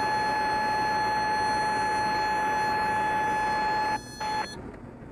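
Super Decathlon's stall warning horn sounding a steady high-pitched tone as the airplane slows to the stall for a spin entry, over steady cockpit noise. It cuts out about four seconds in, sounds again briefly, then stops.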